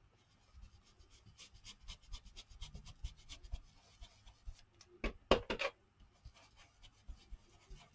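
Black marker scribbled quickly back and forth on paper through a plastic stencil, a rapid run of scratchy strokes, with a few louder sharp taps a little after the middle. The marker is running a little dry.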